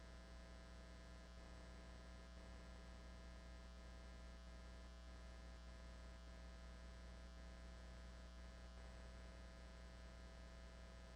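Near silence with a steady low electrical hum on the broadcast audio line.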